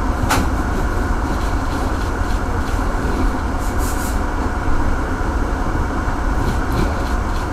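Steady machine noise of a commercial kitchen: a low rumble with a faint even hum over it, and a brief sharp click just after the start.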